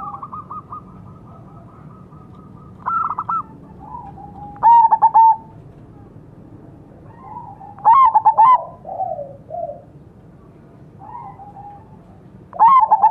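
Zebra doves (perkutut) cooing: four loud bursts of rapid staccato coo notes come about every 3 to 4 seconds. Fainter cooing phrases fill the gaps between them.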